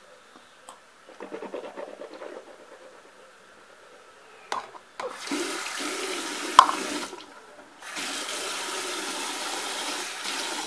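Water swished in the mouth to rinse after brushing teeth, then a tap running into a sink in two spells, about two seconds and then about three, with a couple of sharp knocks.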